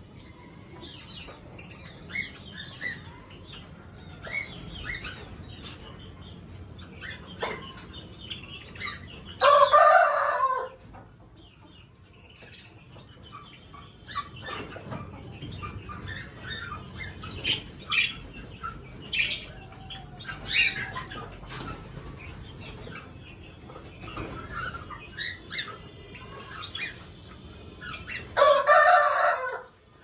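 Small finches in an aviary, Java sparrows among them, chirping with many short high calls. Twice, about ten seconds in and again near the end, a much louder sound lasting about a second stands out over the chirping.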